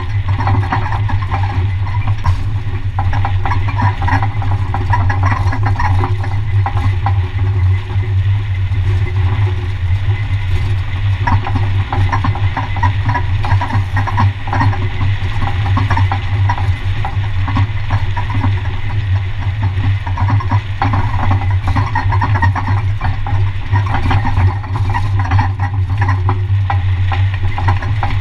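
Pickup truck towing a lawn-care trailer along a road: a steady low drone of engine and road noise, unchanging throughout.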